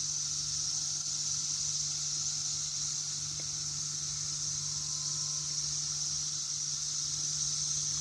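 Steady, unbroken chorus of 17-year periodical cicadas (Brood X), a high-pitched drone at an even level.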